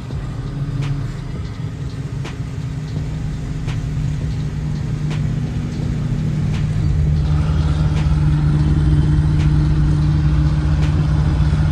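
Pontiac G8 GT's V8 engine heard from inside the cabin while cruising: a steady low drone that grows louder from about seven seconds in as the car speeds up. Faint ticks come about every second and a half.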